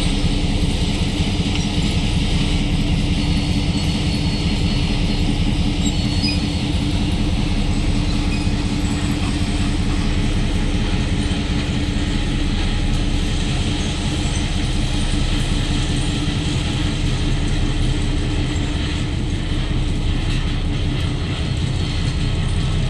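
Diesel locomotive of a ballast work train running steadily with a low, even hum.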